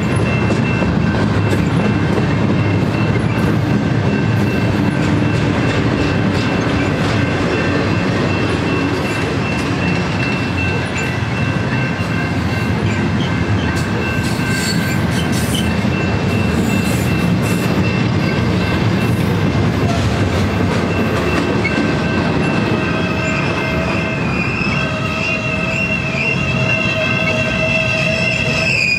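Double-stack container cars of a freight train rolling past, a steady rumble of wheels on rail. Thin steady wheel squeal rings over it and grows louder in the last several seconds.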